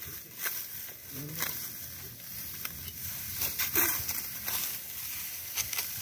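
Hand sickle cutting through dry wheat stalks, with a few crisp crunches and rustles of dry straw at irregular intervals.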